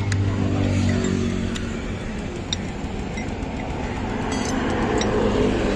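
Engines of passing road traffic, a steady low hum that swells again near the end, with a few light metal clinks of motorcycle brake caliper parts being handled.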